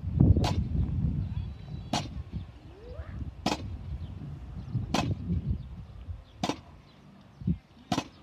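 Wind buffeting the microphone as a low rumble that eases off after the first couple of seconds, with a sharp click every second and a half throughout. Near the end comes a dull knock as a bumper-plate-loaded barbell is set down on the court.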